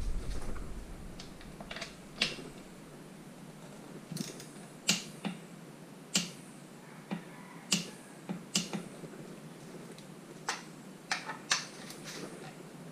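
Torque wrench clicking on the rear shock mounting bolts as they are tightened to 106 inch-pounds: about a dozen sharp single clicks at irregular intervals.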